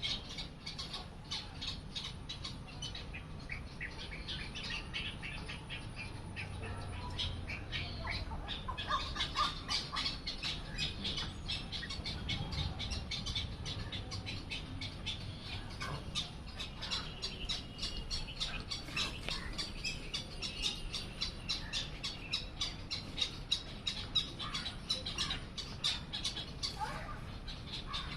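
Bird chicks calling: a dense run of rapid, short, high chirps and squawks, the begging calls of nestlings being fed by a parent bird.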